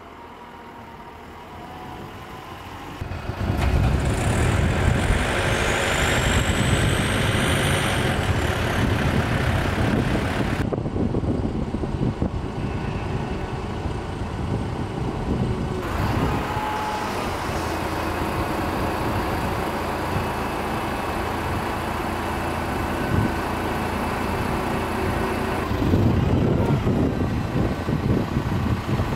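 Compact wheel loader's diesel engine running, getting much louder about three seconds in as it works the boom and rotating log grab, then running loud and steady. A brief thin high whine rises and falls a few seconds later.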